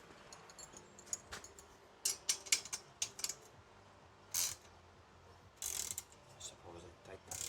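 Irregular clicks and light metallic clinks of garage door opener hardware and tools being handled during assembly, with two brief scraping sounds about four and six seconds in.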